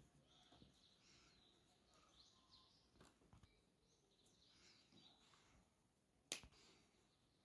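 Near silence, with faint bird chirps in the background and one sharp click about six seconds in.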